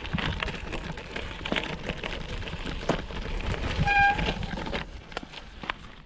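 Gravel bike tyres crunching and rattling over a gravel track, with many small clicks and knocks, easing off about five seconds in. A single short high beep sounds about four seconds in.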